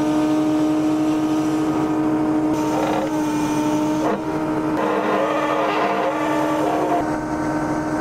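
Volumetric concrete mixer truck running steadily, with a strong steady hum and one short knock about four seconds in.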